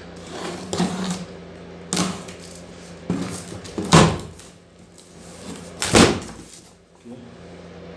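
Cardboard box and packaging being opened and handled: a series of knocks and rustles, the loudest about four and six seconds in, over a steady low hum.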